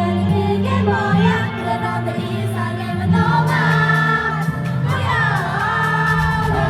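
K-pop girl group singing live over a pop backing track with a steady bass line, the vocals ending on a long held note near the end.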